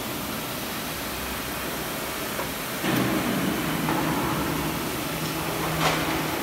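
CNC vertical machining centre running while milling, a steady machine noise throughout. About three seconds in a low, steady hum comes in and holds, and a single sharp click sounds near the end.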